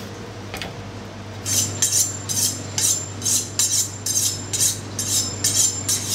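Kitchen knife being honed on a steel: quick scraping strokes of blade against rod, about three a second, each with a light metallic ring, beginning about a second and a half in.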